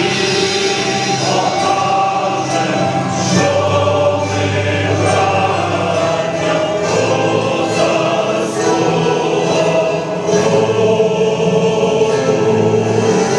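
A choir singing: several voices holding long, sustained notes together.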